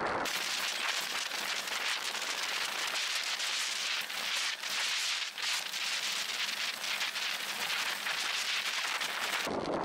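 Wind and road noise on a bike-mounted camera, heard as a dense, high crackling hiss with almost no low rumble. It sets in just after the start and cuts off suddenly near the end.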